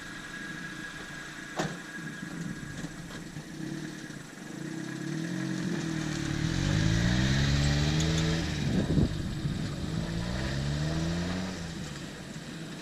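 A vehicle engine accelerating through several gears, its pitch climbing in each gear and dropping at each shift; it grows louder through the middle and fades near the end.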